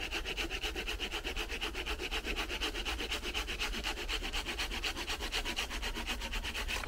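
Bahco Laplander folding saw cutting into a firewood round in quick, even strokes, several a second, with a steady rasp of the teeth in the wood.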